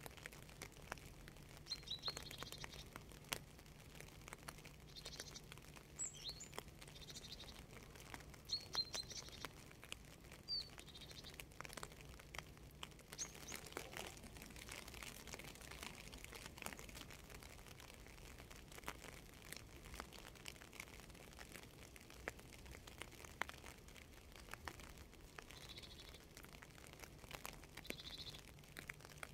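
Faint rain ambience: scattered drips and light patter of raindrops, with small birds chirping now and then, mostly in the first half and again near the end. A steady low hum runs underneath.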